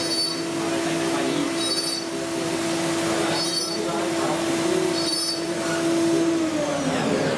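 CNC milling machine spindle running with a small end mill cutting a part held in a fixture: a steady whine, with short high squeals about every one and a half seconds as the cutter bites. The whine drops away near the end.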